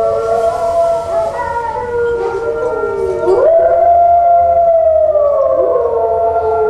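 Recorded wolf howls played over the sound system: several long howls overlapping, sliding slowly in pitch. A new howl rises about three seconds in and then sinks slowly.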